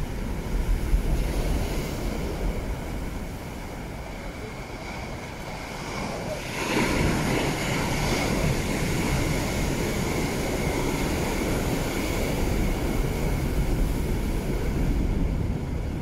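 Sea waves breaking on rocks. A bigger wave crashes a little before halfway through, and its surf rushes on until near the end. Wind buffets the microphone with a low rumble.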